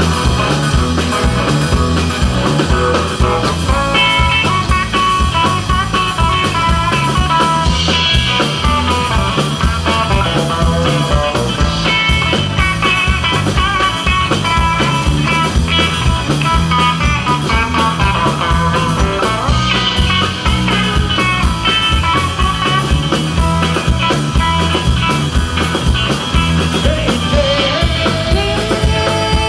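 Live southern country rock band playing: electric guitars over bass and a steady drum beat.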